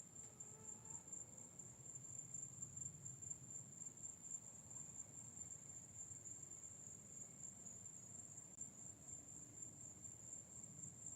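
Night insect chorus: a steady, high-pitched trilling that pulses slightly, with a faint low rumble underneath.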